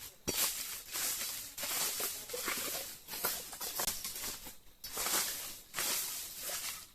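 Repeated short hissing, rustling strokes, about one a second, with a few light clicks between them.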